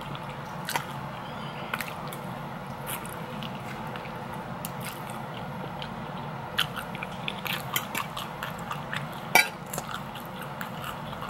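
A person chewing food close to the microphone, with scattered small clicks and taps that bunch up in the second half and one sharper click a little before the end.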